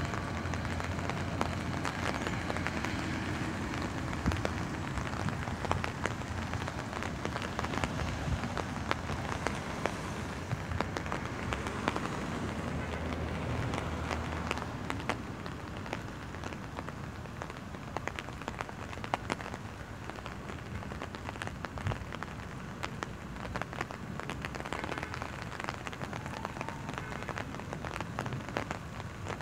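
Steady rain pattering on an umbrella, with many separate drop hits. Under it, the low rumble of a departing diesel commuter train fades away over the first half.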